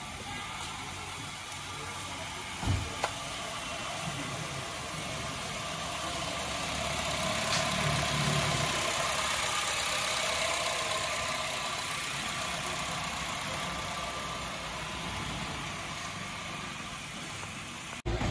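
Honda City's four-cylinder i-VTEC petrol engine idling steadily with the bonnet open, just after being started, growing louder in the middle as it is heard from close over the engine bay. A couple of light clicks are heard about three seconds in.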